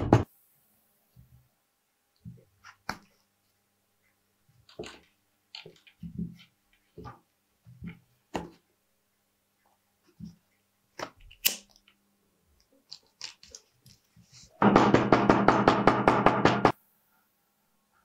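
Small steel hammer tapping quickly on a leather stitch line to set the stitches, several taps a second; the run stops just after the start. Then comes hand saddle stitching: scattered soft ticks and rubs as needles pass through the leather and the thread is pulled tight. Near the end the hammer taps again fast for about two seconds.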